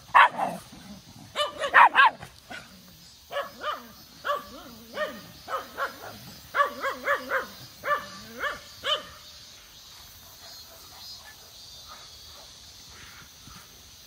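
Dogs barking in quick runs of short barks, stopping about nine seconds in. Cicadas drone steadily underneath.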